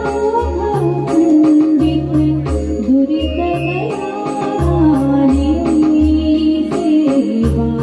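Live stage music: a woman sings a wavering melody into a microphone over keyboard accompaniment, with a steady repeating low beat and regular light percussion ticks.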